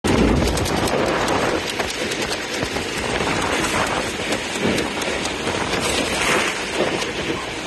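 Inflatable snow tube sliding fast down a plastic bristle summer tubing mat: a loud, steady rushing hiss crackling with many small clicks, with wind on the microphone.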